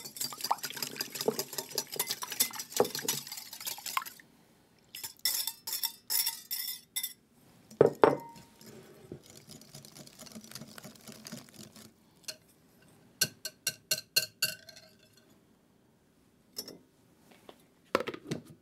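Metal wire whisk beating two eggs in a small glass bowl, a fast clatter against the glass for about four seconds. The whisk then stirs the eggs into a bowl of yeasted potato batter, with a ringing clink on the glass about eight seconds in and a quick run of about eight taps on the bowl a few seconds later. A plastic lid is knocked onto the bowl near the end.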